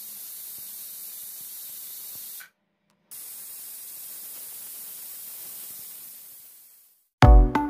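Prestige pressure cooker letting off steam through its weight valve: a steady hiss, heard as two separate whistles, the second fading away. Each whistle shows the cooker has reached pressure.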